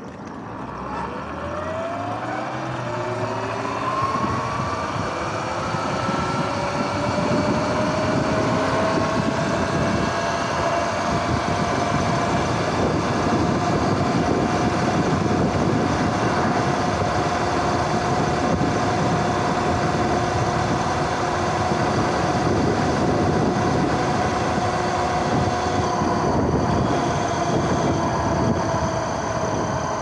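Sur-Ron X electric dirt bike pulling away from a stop: the electric motor and drive whine rises in pitch over the first several seconds as the bike speeds up, then holds steady at cruising speed, easing slightly near the end. Wind and tyre noise grow with the speed.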